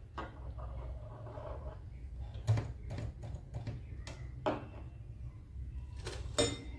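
Several short, sharp clicks and knocks as fabric pieces are arranged under a sewing machine's presser foot, the loudest about two and a half seconds in and near the end, over a steady low hum. The machine is not stitching.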